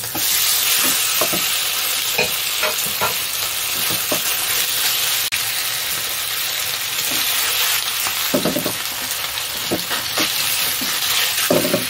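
Marinated chicken pieces frying in hot oil in a non-stick wok on high heat: a steady loud sizzle, with a wooden spatula clicking and scraping against the pan as the pieces are stirred, including a couple of longer scrapes in the second half.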